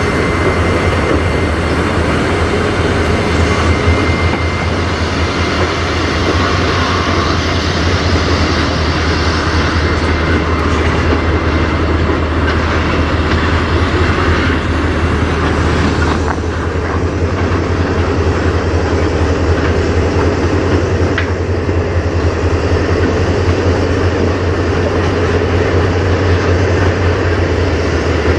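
Freight train passing close by: two CSX diesel locomotives go by with a steady low rumble, then loaded tank cars roll past on the rails.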